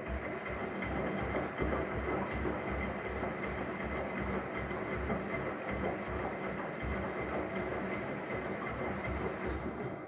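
Myria MY1506 front-loading washing machine tumbling its empty drum during a 90 °C cotton drum-clean wash. The motor runs with water and foam sloshing in a quick, even rhythm. The tumble starts at the beginning and stops near the end.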